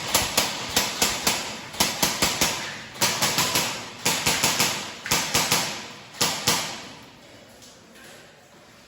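Airsoft guns firing a rapid string of about twenty shots in uneven bursts, each crack followed by a reverberant tail in the mine tunnel; the shooting stops about six and a half seconds in.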